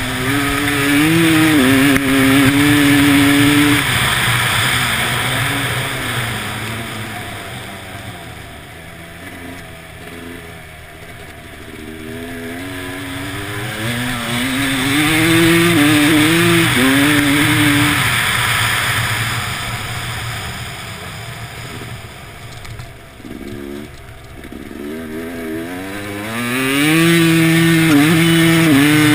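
Motorcycle engine revving hard and shifting up through the gears, then easing off, in three loud pulls, near the start, about halfway through and near the end, with wind rushing past the microphone.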